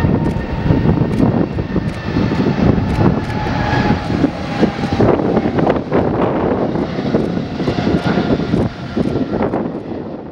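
Boeing 777-300ER's twin GE90-115B turbofans at takeoff thrust as it lifts off and climbs: a loud, continuous crackling jet roar with a faint whine sliding slowly down in pitch. It fades out near the end.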